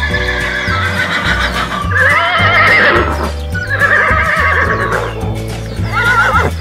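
A horse whinnying several times, each call with a shaky, wavering pitch, over background music with a repeating bass line.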